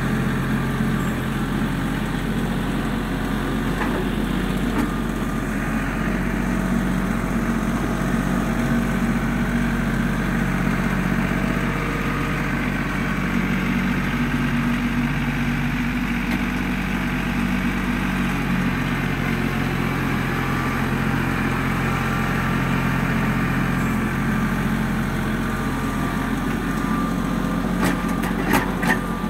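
Diesel engine of an LS compact tractor running steadily under load while pulling a box blade through loose dirt. A few sharp clicks come near the end.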